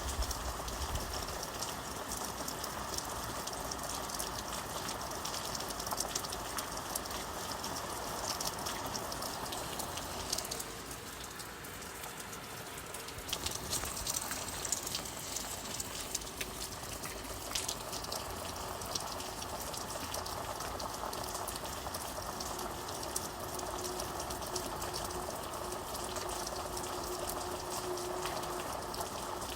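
Steady rain falling, a dense hiss of many small drop ticks. It eases briefly about a third of the way in, then comes back with sharper, brighter patter.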